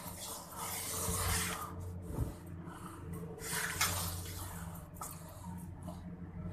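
Water sloshing and swirling in a stainless steel sink as the basin is scrubbed with a steel-wool pad and the water drains away. A low steady hum runs underneath.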